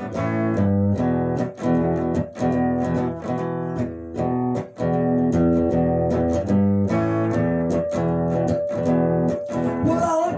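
Electric guitar, a Telecaster-style guitar, playing a repeated boogie rhythm riff in short, evenly spaced strummed strokes, a few each second.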